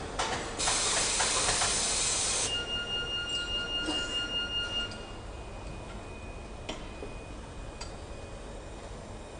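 A loud hiss for about two seconds, then a fainter hiss with a steady whistling tone for a couple of seconds, followed by a few light metallic clicks as machine parts are handled.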